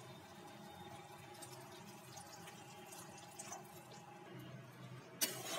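Masala curry gravy, thinned with water, simmering faintly in a metal pan with soft bubbling and small ticks. Near the end a sharp clack of a metal spatula against the pan.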